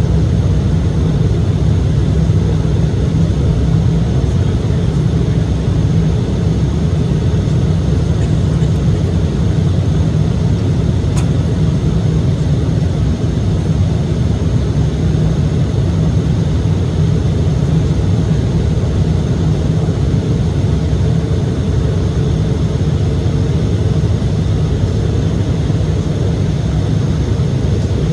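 Steady low drone in the cabin of an Embraer E-175 regional jet, from its twin CF34 turbofan engines and the airframe.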